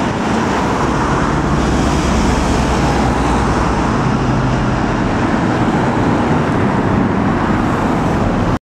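Class 37 diesel locomotive's English Electric V12 engine running as it approaches, mixed with steady road traffic noise; both cut off suddenly near the end.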